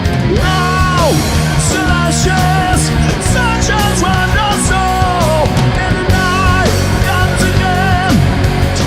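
Heavy metal band playing live: distorted rhythm guitars, bass and drums with cymbals, under a lead melody with pitch bends.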